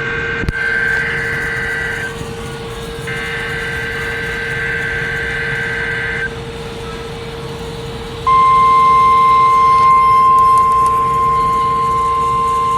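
NOAA Weather Radio broadcast of an Emergency Alert System test: two bursts of SAME header data tones over a steady low hum. About eight seconds in, the steady 1050 Hz warning alert tone starts and keeps sounding.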